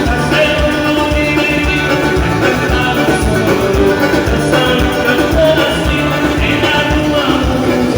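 Band playing upbeat dance music with a steady, regular beat.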